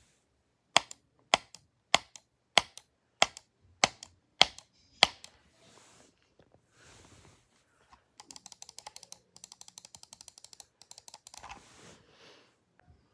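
Sharp mechanical clicks: eight loud ones, each followed by a softer second click, about 0.6 s apart. Then, about eight seconds in, a fast run of lighter clicks like typing that lasts a few seconds.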